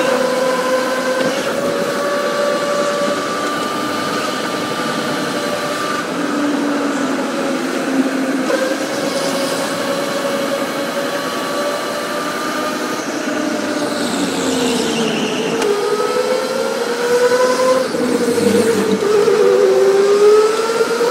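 Electric go-kart motor whining over tyre and rolling noise, its pitch sinking as the kart slows and climbing again as it speeds up, twice in the second half.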